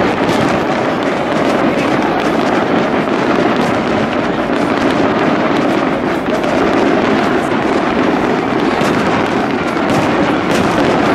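Large fireworks display: aerial shells bursting with many rapid, overlapping bangs and crackles, keeping up without a pause.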